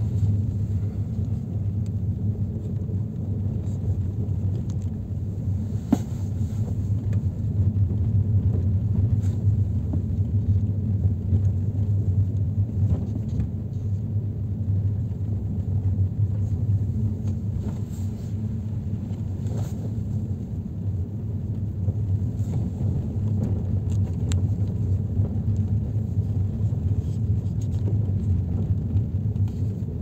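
Steady low rumble of a car driving slowly, with engine and road noise heard from on board, and a brief click about six seconds in.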